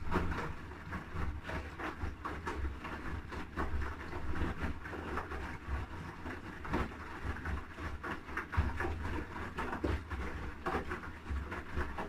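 Haier I-Pro Series 7 (HW80-B14979) front-loading washing machine's drum turning during the wash, with a steady low motor hum under the irregular slosh and flop of wet clothes and soapy water tumbling inside the drum.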